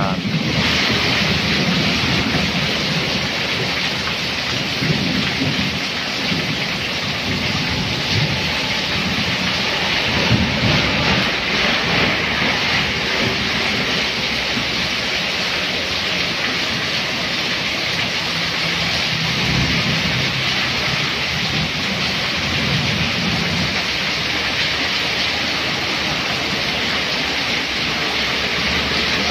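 Heavy rain pouring steadily onto a flooded street, with cars and motorbikes splashing through the standing water. Low rumbles swell up now and then.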